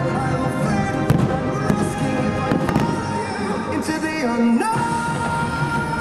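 Anime-song music playing continuously while fireworks go off with several sharp bangs between about one and three seconds in, the loudest at about one second.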